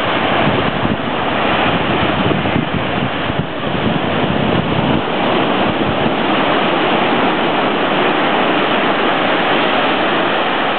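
Ocean waves breaking and washing up a sandy beach: a loud, steady rush of surf.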